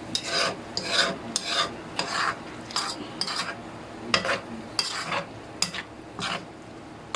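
A utensil stirring and scraping through chicken gizzards and livers in soy sauce and water in a frying pan. It makes a run of short, uneven scrapes, about two or three a second, that ease off near the end.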